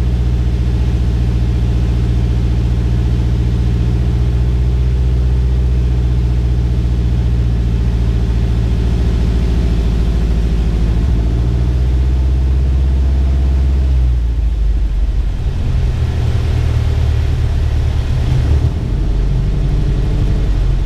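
Engine and propeller of a light single-engine aircraft heard from inside the cockpit, running steadily on final approach. About two-thirds of the way through, the engine note drops and turns rougher as power is taken off for the landing.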